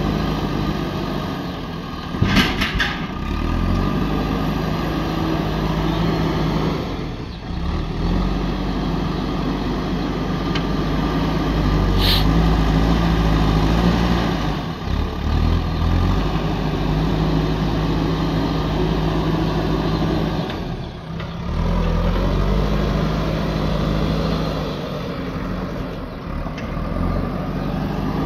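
JCB backhoe loader's diesel engine running under load, its pitch rising and falling as the front bucket digs into and lifts soil. A few sharp knocks about two seconds in.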